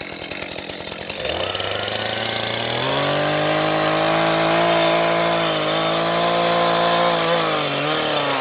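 Gas chainsaw revving up from a lower speed about a second in to full throttle, then running steadily as it cuts into the tree trunk, its pitch dipping briefly a couple of times under load before it eases off at the end.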